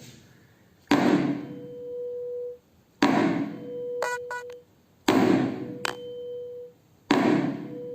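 Tuning fork struck four times, about two seconds apart: each strike is a sharp knock followed by a steady, pure ringing tone that lasts about a second and a half and then stops abruptly.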